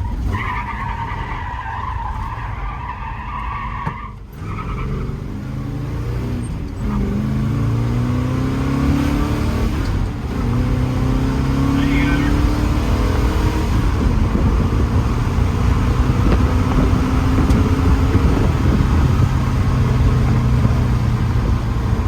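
1969 Chevrolet Camaro doing donuts: tires squeal for about the first four seconds, then the engine revs up again and again in rising sweeps over a steady low rumble.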